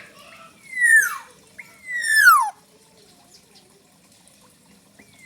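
Black-naped oriole (kepodang) giving two loud calls, each sliding down in pitch over about half a second; a third call starts right at the end.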